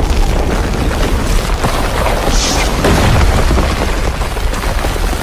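Earthquake shaking a room: a loud, continuous low rumble with dense rattling and knocking, swelling slightly a couple of seconds in.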